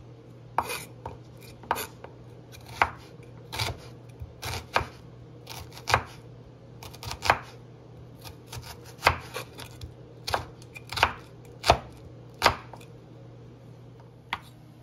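Kitchen knife slicing a shallot into slivers on a wooden cutting board: sharp knocks of the blade striking the board, irregular, one or two a second, with a pause before a last knock near the end.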